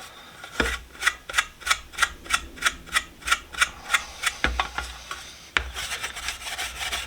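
Hand-rubbing the primer coat on a metal tool box to smooth out bumpiness, in brisk, even back-and-forth strokes, with a short break a little past halfway and a few dull knocks of the box being handled.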